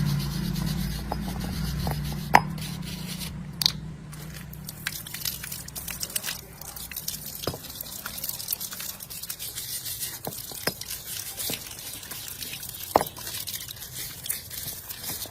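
Scattered clicks, taps and scrapes of hand work, with a low hum fading out over the first few seconds; two sharp knocks stand out, one early and one near the end.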